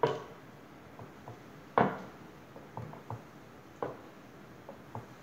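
Wooden rolling pin rolling out a slice of bread on a wooden board, knocking and tapping against the board at irregular intervals: a few sharp knocks, the loudest about two seconds in, with lighter taps between.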